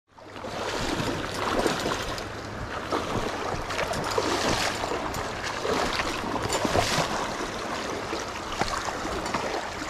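Water splashing and swishing as legs in waders push through a shallow, flowing river, over the steady rush of the current.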